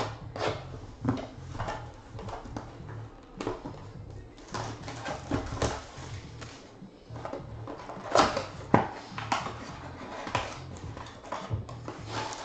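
A 2015 Bowman's Best cardboard card box being handled and pulled open: scattered rustles, scrapes and sharp taps of cardboard and packaging, two of them louder about eight and nine seconds in, over background music.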